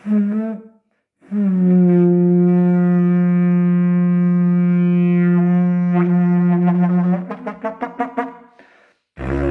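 Didgeridoo in B, made by Paco Moreno, played as one long steady drone for several seconds. The drone then breaks into quick rhythmic pulses of about five or six a second, and a loud low blast comes near the end.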